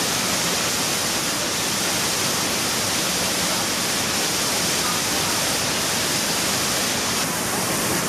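Waterfall rushing steadily, a loud, even roar of water pouring over rock.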